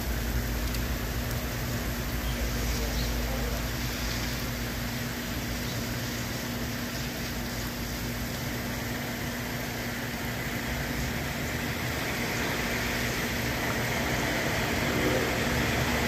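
Rain and traffic on a wet street: a steady hiss of tyres on wet pavement, with a low rumble in the first few seconds. The hiss swells near the end as cars pass close by.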